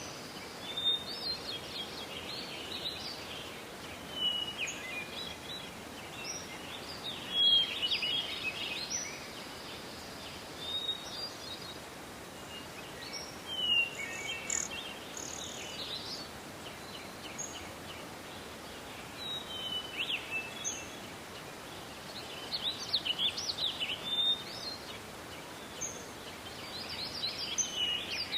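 Forest birdsong: many short, high chirps and trills from several small songbirds, coming in clusters over a steady soft hiss of forest ambience.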